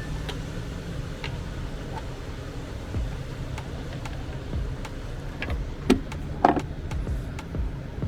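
A vehicle engine running with a steady low rumble, with scattered light clicks and two sharper knocks about six seconds in.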